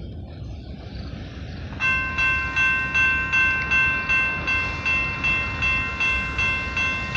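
Railroad grade crossing bell starting to ring about two seconds in, striking steadily about two to three times a second, each strike ringing and fading, over a low background noise: the crossing has been activated by an approaching train.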